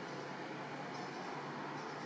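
Steady, even outdoor background hiss with no distinct sound events.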